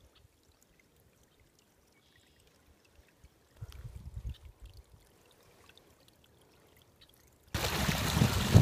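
Water rushing and pouring through a gap in a stick dam, beaver-built by the look of it, starting loud and sudden about seven and a half seconds in. Before that it is nearly quiet apart from a few low thumps and rumbles around four seconds in.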